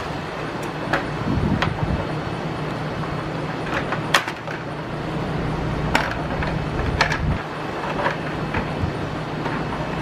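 Plastic front cockpit panels of a Triumph Tiger 800 clicking and knocking as they are worked loose and pulled off by hand, with a dozen or so sharp clicks, the loudest about four and six seconds in, over a steady low hum.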